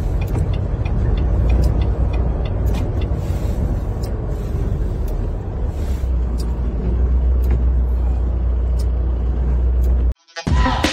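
Semi truck running on tire chains over a snowy road, heard from inside the cab: a steady low rumble with scattered sharp clicks. The sound cuts off abruptly near the end and music starts.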